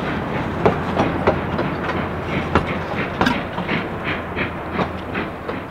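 Narrow-gauge train cars rolling by, their wheels clicking over rail joints several times a second over a steady rumble. The sound drops away near the end.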